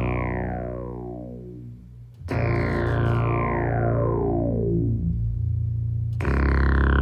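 Guitar played through an Electro-Harmonix Synth9 synthesizer pedal: sustained synth-like chords, struck anew about two seconds in and again near the end. After each attack a bright sweep glides downward through the tone, giving a wailing, eerie sound.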